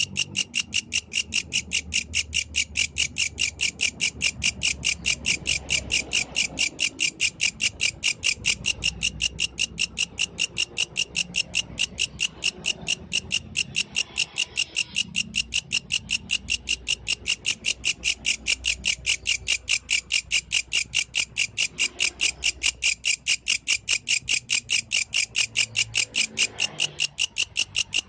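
Yellow grasshopper calling: an unbroken, even train of sharp, high chirps at about three a second.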